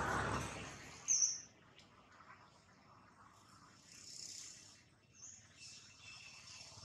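Two short, high-pitched bird chirps: the louder one about a second in, a softer one just after five seconds. Behind them is a faint, steady, thin insect tone, and a wash of noise fades out in the first half second.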